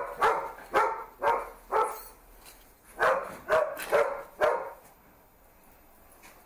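A dog barking in two runs of about four barks each, roughly two barks a second.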